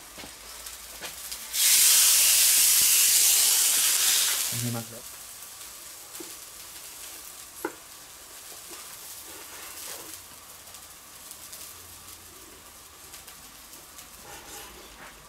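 Food sizzling in hot fat: a loud hiss for about three seconds, starting a second and a half in, that then drops to a faint steady sizzle with a few light knocks.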